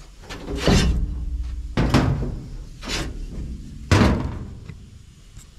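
Sheet-metal sandblast cabinet door and panels banging: four loud knocks about a second apart, each ringing off briefly.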